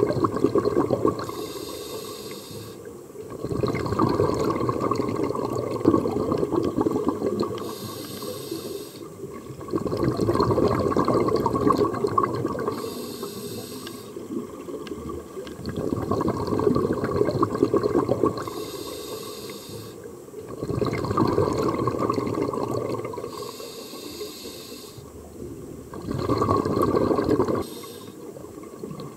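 Scuba diver breathing through a regulator underwater: a short hissing inhale, then a longer rush of exhaled bubbles, repeating about every five seconds for six breaths.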